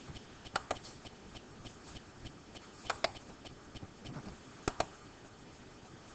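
Computer mouse clicking: three quick pairs of sharp clicks, spaced a second or two apart, over faint hiss.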